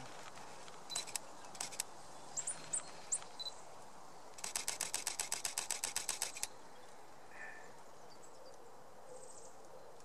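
Canon EOS M5 camera shutter firing a few single shots, then, a little before halfway, a burst of about twenty rapid shots lasting around two seconds. Small birds chirp briefly between the single shots and the burst.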